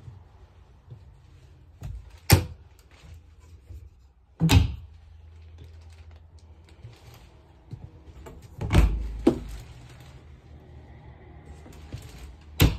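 Wardrobe cabinet doors in an RV bedroom being opened and shut. There are about five sharp knocks and latch clicks, a few seconds apart.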